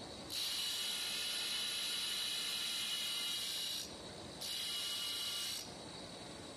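Thin abrasive wheel grinding serration grooves into a steel vise jaw: a long harsh hiss of the wheel biting into the steel for about three and a half seconds, a brief pause where only the spinning wheel's steady high whine is heard, then a second, shorter cut of about a second.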